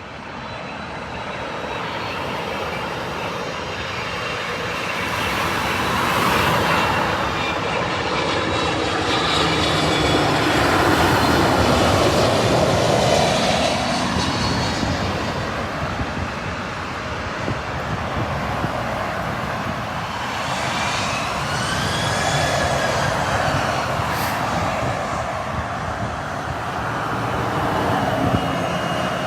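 Jet airliner passing close by: a steady engine rush that swells to its loudest about a third of the way in, with a whine whose pitch bends as the aircraft goes past.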